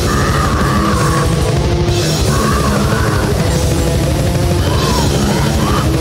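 Death metal recording: fast, heavy drums and distorted guitars under an African grey parrot's squawks used as the lead vocals, breaking in every second or two.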